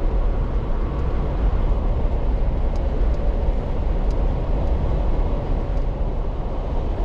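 A car being driven along: a steady rumble of road and engine noise, heaviest in the low end.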